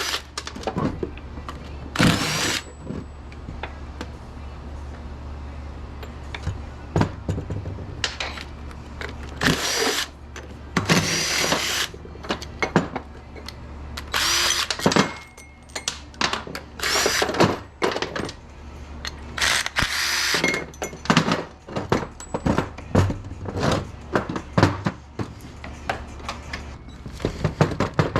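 Handheld power tool, drill-like, run in many short bursts one after another with a high whine in each, over a steady low hum.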